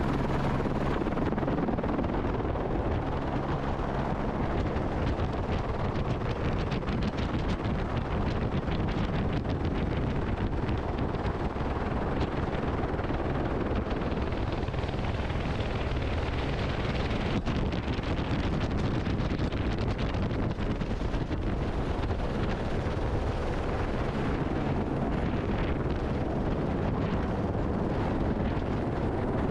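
Airbus AS350 B3e Esquilo helicopter in flight: a steady, dense rotor and turbine noise, with wind on the microphone.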